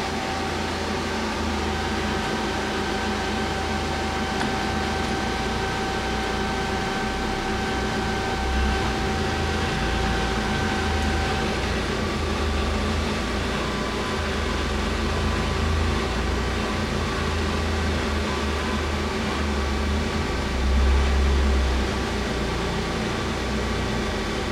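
2011 Feeler HT-30Y CNC turning center running steadily, a hum with a thin whine over it; the pitch of the whine shifts about halfway through.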